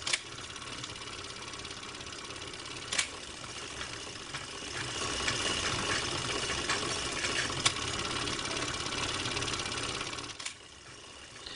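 Steady mechanical whirr with hiss, interrupted by a few sharp clicks; it grows slightly louder midway and fades near the end.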